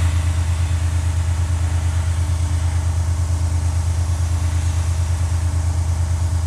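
Airbrush spraying black paint: a steady hiss of air, over a loud, low, throbbing hum from a small motor running.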